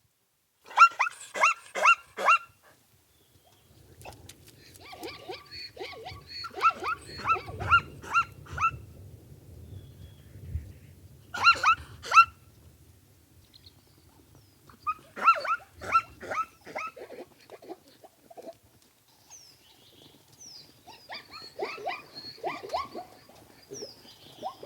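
Zebra foal calling: bouts of four to six short, quick, pitched barking yelps, repeated about five times with pauses between. A low rumble sits under the middle bouts.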